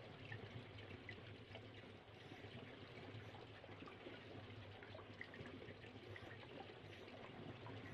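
Faint, steady trickle of water.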